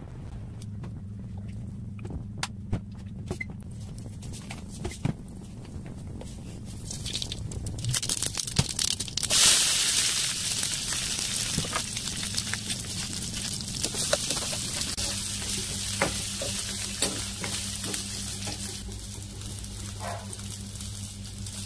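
Cooking oil heating in a steel pot with scattered small clicks over a low steady hum, then about nine seconds in, curry leaves and sliced onion go into the hot oil and sizzle loudly. The frying sizzle then runs on steadily.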